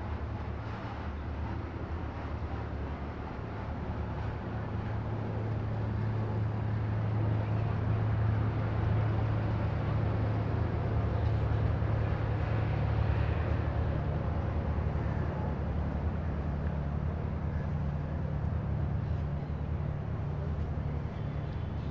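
Low, steady engine drone that grows louder toward the middle and eases off again near the end.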